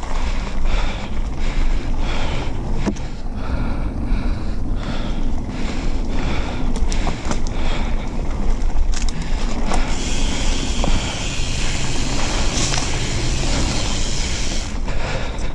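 Riding noise from a Propain Tyee full-suspension mountain bike descending a dirt and gravel trail: wind buffeting the camera microphone, tyres rolling over the ground, and frequent knocks and rattles from the bike over bumps. About two-thirds of the way through, a steadier high hiss joins in for a few seconds.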